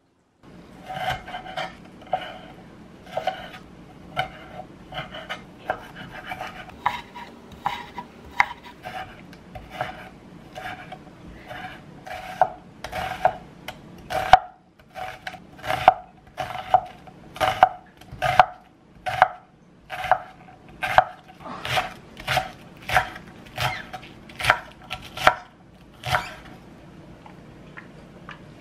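Vegetable knife chopping an onion on a wooden cutting board: a long run of sharp knocks with a slight ringing from the blade, louder and about once a second in the second half, stopping near the end.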